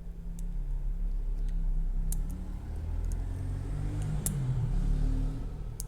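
A pick working the levers of a 10-lever lever padlock under tension, giving a few sharp, light clicks about every second and a half or two. Under it runs a steady low rumble.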